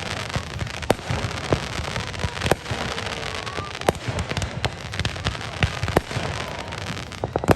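Fireworks going off in quick succession: a steady dense crackle broken by frequent sharp bangs at irregular intervals.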